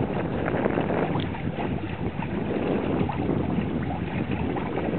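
Water sloshing and splashing along the hull of a small trimaran sailing slowly in light air, with wind buffeting the microphone.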